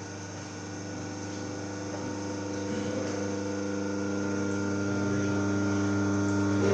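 Single-phase capacitor-start induction motor running with no load on its shaft: a steady electrical hum that grows gradually louder.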